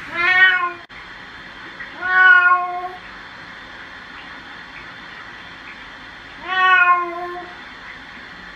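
Domestic cat meowing three times while being bathed, each meow under a second long, the pitch rising and then dipping slightly.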